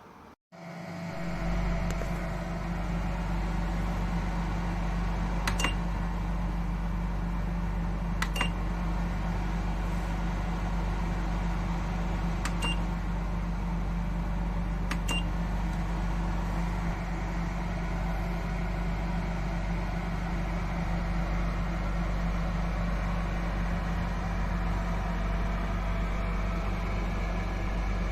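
AooDen fireplace-style electric ceramic fan heater running: a steady fan hum with a low drone that comes up to speed within about a second. Four short click-beeps sound between about 5 and 15 seconds in.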